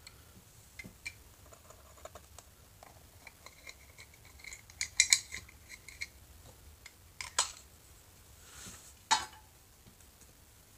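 Small hard plastic miniature pieces clicking and tapping as they are handled and set down on cardboard boxes. The clicks are scattered, with a quick cluster about halfway through and a couple of single taps after it.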